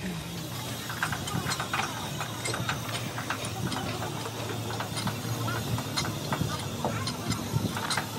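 Scattered knocks and clinks as a heavy truck wheel and tyre is rolled and handled into place on the hub, over a steady low engine-like hum.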